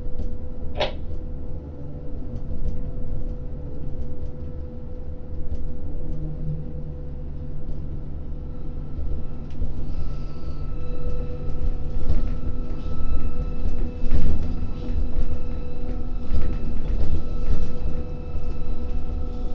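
Port crane machinery running: a steady low rumble with a constant hum, and a higher whine that joins about ten seconds in as the grab is moved. There is a short sharp click about a second in.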